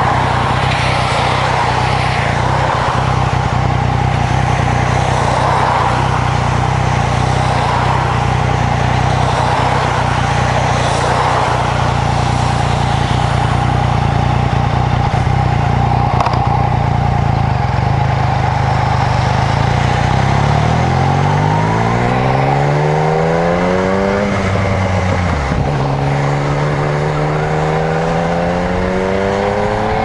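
Yamaha MT-09's three-cylinder engine idling steadily at a standstill, then pulling away with rising revs about two-thirds of the way in. The pitch falls back briefly once and climbs again.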